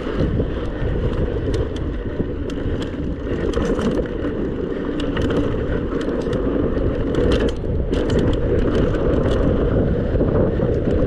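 Mountain bike riding fast down a dry dirt singletrack: a steady rumble of wind on the mounted camera's microphone and tyres on the dirt, with frequent irregular clicks and rattles from the bike over the bumps.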